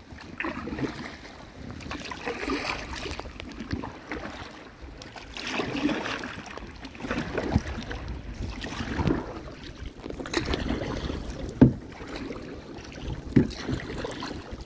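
Kayak paddles dipping and splashing in calm water, the splashes swelling and fading with each stroke every second or two. There are a couple of sharp knocks near the end.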